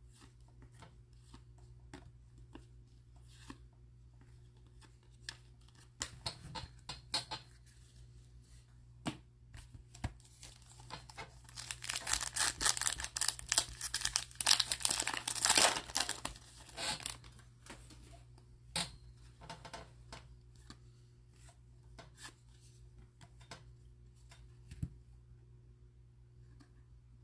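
Foil wrapper of a Donruss baseball card pack being torn open and crinkled: a dense crackling that starts about twelve seconds in and lasts about five seconds. Scattered light clicks and taps of cards being handled come before and after it.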